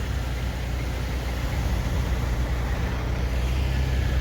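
Diesel truck engines idling with a steady low drone.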